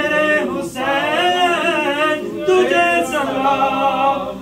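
Men's voices singing an Urdu devotional salam to Imam Husain a cappella, long drawn-out melodic phrases with no instruments, broken by brief pauses for breath.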